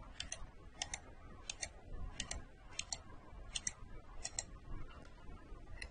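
A computer mouse's left button clicked seven times, about one click every 0.7 seconds. Each click is a faint double tick of press and release.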